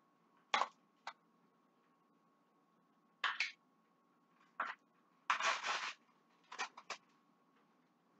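A series of short clicks and scrapes from a plastic butter tub and kitchen utensils being handled at the stove, with one longer scrape a little after five seconds in.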